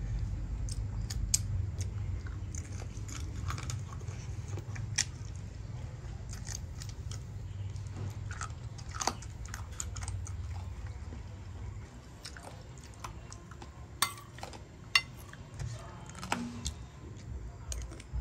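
Someone chewing and biting boiled chicken feet close to the microphone, heard as irregular short sharp clicks. A low steady background rumble drops away about twelve seconds in.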